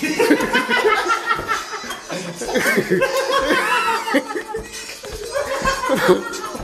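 Men laughing and chuckling, with some excited talk mixed in.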